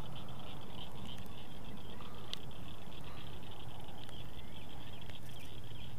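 A steady, high-pitched, pulsing chorus of calling animals over a low rumble, with a few faint clicks.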